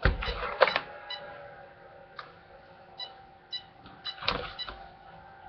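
Knocks and clicks of hands handling an RC truck's chassis and its pistol-grip transmitter, several in the first second and another about four seconds in, with a few short faint ticks between them over a faint steady hum.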